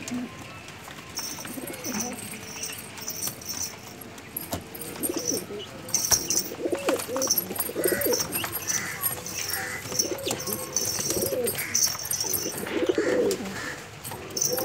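Domestic pigeons cooing, a run of low warbling coos repeating about once a second from roughly five seconds in.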